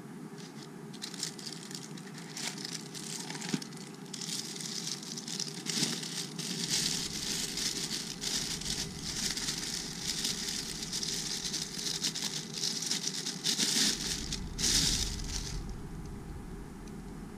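Clear plastic bag crinkling and rustling as it is handled, lifted out of a foam-lined box and pulled off the camera wrapped inside it. The rustling comes in uneven bursts, loudest shortly before it dies away near the end.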